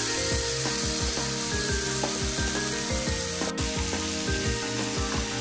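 Marinated chicken pieces sizzling in hot coconut oil in a frying pan and being stirred with a spatula, over background music with a steady beat.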